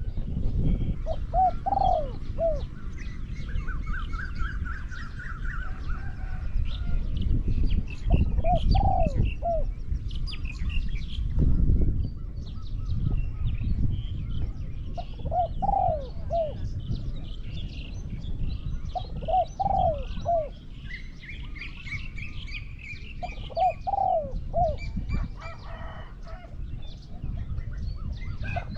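Spotted doves cooing: five short phrases of three or four low coos each, several seconds apart. Small birds chirp higher up over a low rumbling background.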